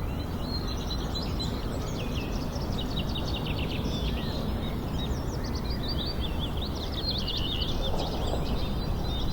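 Nature ambience of birdsong: many quick chirps and trills from several birds over a steady low rushing background.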